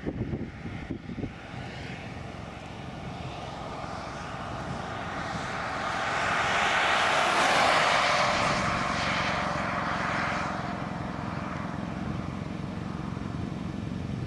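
A vehicle passing by: its noise swells over several seconds, peaks about halfway through and fades away, over a steady low rumble.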